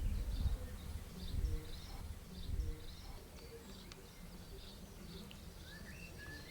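Birds chirping faintly in the background, with a few low rumbles in the first three seconds.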